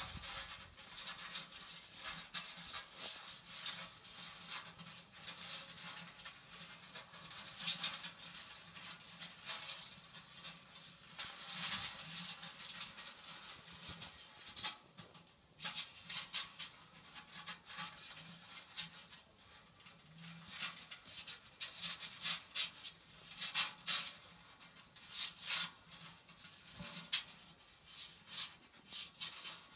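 Newborn kittens shuffling and scrabbling against the inside of a metal basin: irregular scratchy rustling and light clicks.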